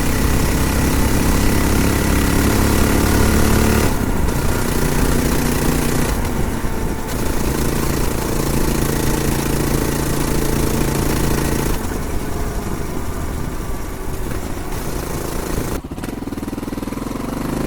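Honda XR650L's air-cooled single-cylinder engine, with its stock exhaust, running under way with plenty of wind noise on the microphone. The exhaust note is quiet and changes pitch several times, with marked shifts about four, twelve and sixteen seconds in.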